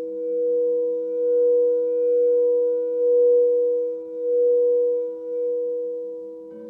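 Several crystal singing bowls ringing together in steady, overlapping tones that swell and dip in slow pulses about once a second. The ringing fades late on, and another bowl is struck just before the end.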